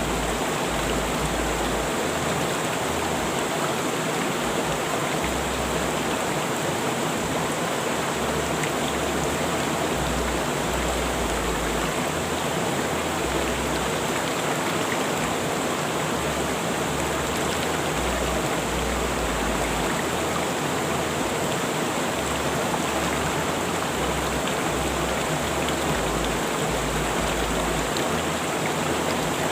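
Rushing river water flowing steadily: an even, continuous rush with no birdsong or music.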